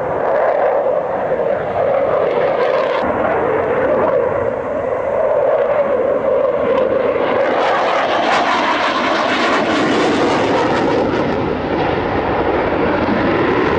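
Dassault Mirage 2000's SNECMA M53 jet engine running loud through a display manoeuvre: a continuous jet roar over a steady drone. It grows brighter and fuller about eight seconds in, then eases a little near the end.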